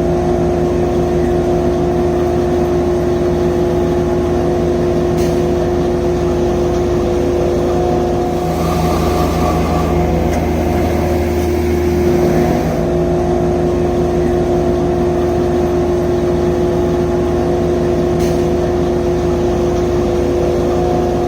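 Engines of concrete-placing machinery, the laser screed among them, running steadily while placing a concrete slab. The engine note changes for a few seconds around the middle, with added hiss.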